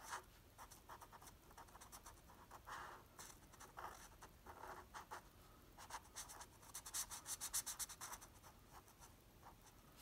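Faint scratching of a felt-tip marker on paper in short back-and-forth colouring strokes, with a quicker run of strokes about six to eight seconds in.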